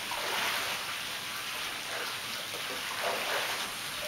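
Steady rush and light splashing of water in a backyard swimming pool.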